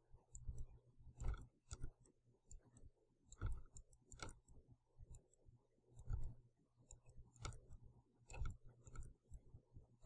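Faint, irregular clicks from working a computer's input device at the desk, a few a second and unevenly spaced, over a low steady electrical hum.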